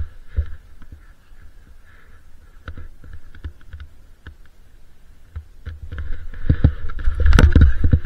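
Skis shifting and scraping in snow, with low knocks and rumble of movement and wind on the point-of-view camera's microphone, growing louder about six seconds in as the skier turns and starts moving.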